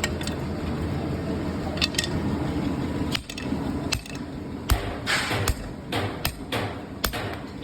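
Hammer blows on a metal strip being shaped, struck about two times a second, starting a little over halfway through. A steady low hum runs underneath.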